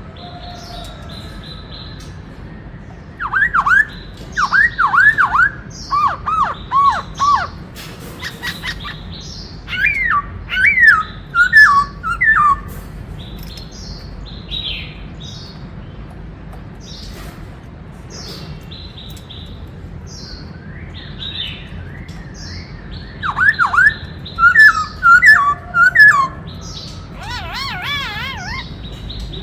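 Black-throated laughingthrush singing: three loud bouts of quick, sweeping whistled phrases, with softer high chattering in between and a wavering trill near the end.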